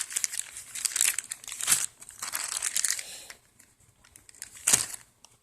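Packaging crinkling and rustling as it is handled, in irregular bursts, then quieter, with one short sharp noise near the end.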